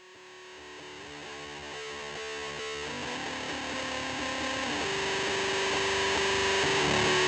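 Music fading in steadily: a distorted electric guitar playing sustained, changing notes.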